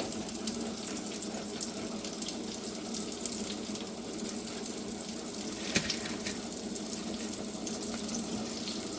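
Battered pickles frying in hot grease: a steady sizzling hiss with scattered crackles, and one sharp click a little past the middle.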